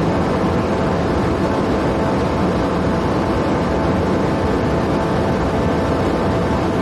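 Subaru Impreza WRX STI's turbocharged 2.5-litre flat-four engine running hard at steady revs, with a constant rush of road and wind noise.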